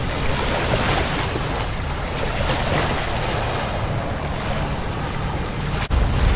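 Small waves lapping on a sandy shore, with wind buffeting the microphone as a low rumble; the sound breaks off for an instant near the end.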